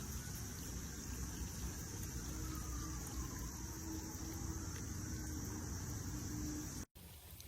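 Steady outdoor background of a low rumble and a high, even hiss, with a faint distant engine-like hum. It cuts off abruptly about seven seconds in.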